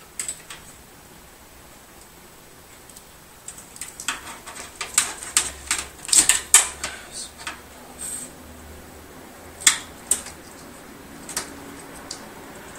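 Small hard parts being handled: irregular clicks and rattles, bunched in a quick run of taps through the middle and a few single clicks after.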